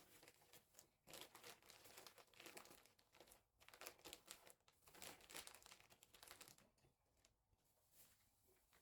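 Faint, irregular crinkling and rustling of dust and packed rubbish being pulled out of a clogged vacuum cleaner's dust bin as it is emptied.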